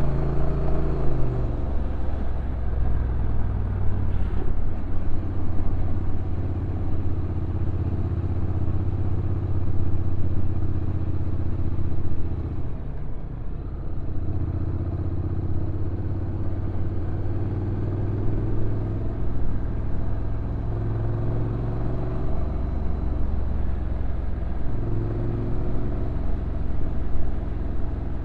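Honda NC750X DCT's stock parallel-twin engine running on a downhill ride, its note falling at the start and rising and falling slightly after that, with a brief dip in level about twelve seconds in.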